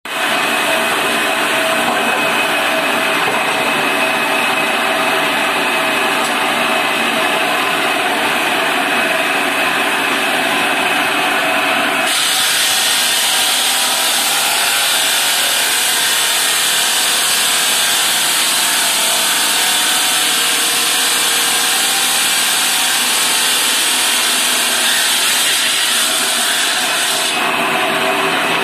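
Water-cooled stone cutting machine with its circular blade driven by an electric motor: it runs steadily with a whine, and about twelve seconds in the blade bites into a stone slab, giving a harsh, high grinding for about fifteen seconds before the cut ends and the plain running whine returns.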